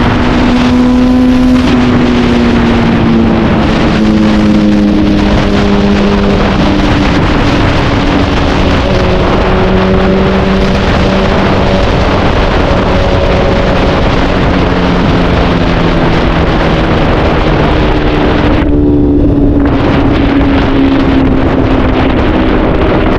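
Honda CBR1000RR's inline four-cylinder engine running as the bike is ridden, its pitch sliding slowly down over the first half and climbing again later, with wind noise on the microphone. About three-quarters through the engine sound briefly thins out before picking up again.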